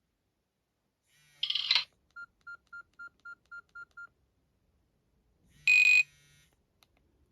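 Nokia E65 mobile phone sounds: a brief burst of a ringtone that cuts off, then eight quick identical beeps at about four a second, like keypad tones as the list is stepped through. A second short ringtone burst with a bright steady tone comes a little before the end.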